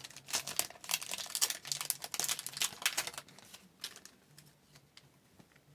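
Foil trading-card pack wrapper crinkling in the hands as a pack is opened, a quick run of crackles that dies away after about three seconds.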